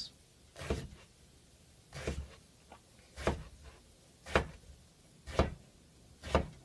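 Kitchen knife chopping eggplant into chunks on a wooden cutting board: six knocks of the blade on the board, about one a second.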